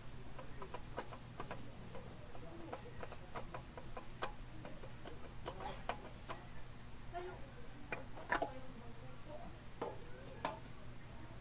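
Faint, irregular clicks and ticks, at times several a second, as a loosened spin-on oil filter is turned off its threaded mount on a Mitsubishi 4D56 diesel by hand.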